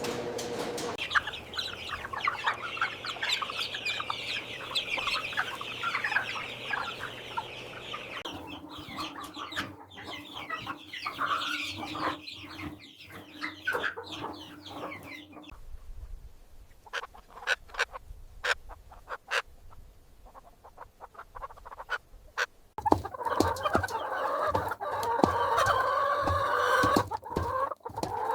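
Chickens clucking, a busy flock sound that thins out to a quieter stretch with scattered clicks in the middle and builds up again near the end.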